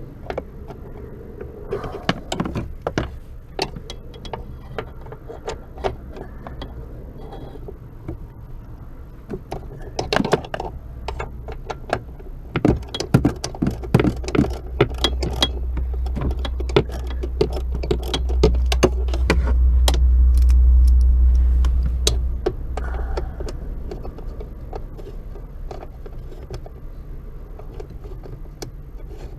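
Metal hand tools clicking and clinking irregularly against nuts and bolts while unbolting a clutch pedal bracket under a car dashboard. A low rumble swells up in the middle and fades out again.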